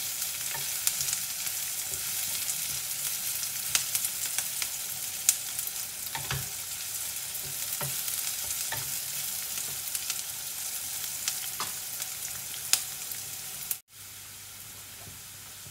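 Sliced onions sizzling in hot oil in a frying pan as they fry toward translucent, stirred with a wooden spatula that scrapes and clicks against the pan. Near the end the sound cuts out for an instant, then goes on as a quieter, even sizzle without stirring.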